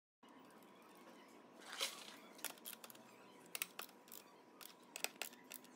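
Bolts being refitted and tightened with a spanner on a motorcycle's metal seat bracket: a series of faint, irregular metallic clicks and taps, with a louder short scrape about two seconds in.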